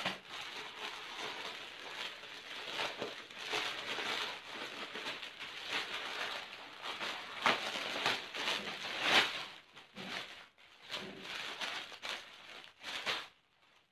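Plastic packaging bags crinkling and crackling as they are handled and opened, with louder crackles about seven to nine seconds in and quieter rustling after that.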